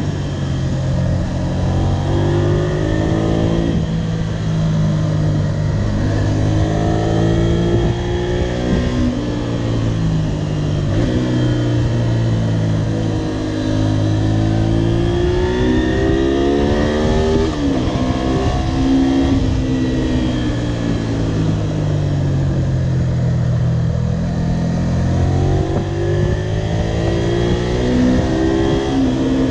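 Honda VTR250's 90-degree V-twin engine running under way, its pitch climbing and dropping several times as the bike accelerates, changes gear and eases off, over steady wind and road noise.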